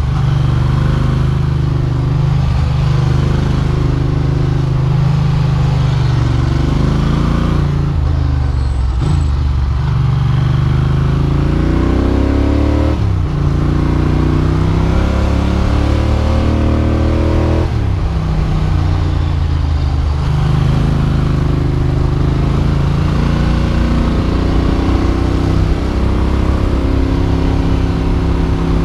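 Ducati Monster motorcycle's L-twin engine running under way, heard from on the bike. Around the middle the revs climb twice and drop sharply at each gear change, then settle back to a steady run.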